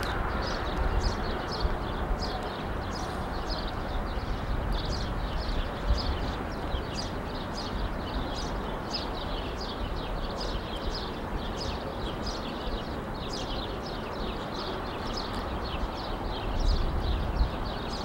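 Small birds chirping constantly: many short, high chirps a second from several birds at once, over a steady background noise.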